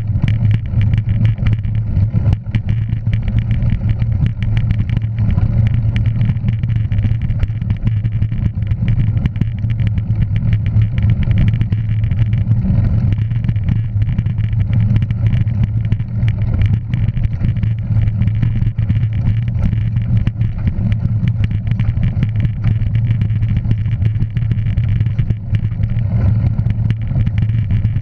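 Steady low rumble of a moving vehicle running at an even pace, with constant fine crackling over it.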